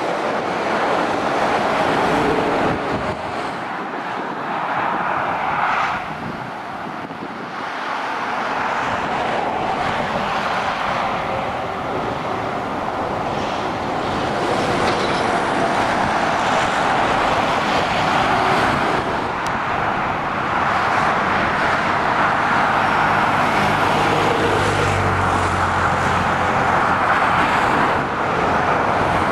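Motorway traffic of lorries and cars passing below: a continuous rush of tyres and engines that swells and eases as each vehicle goes by. A lorry's engine hum grows strong over the last several seconds.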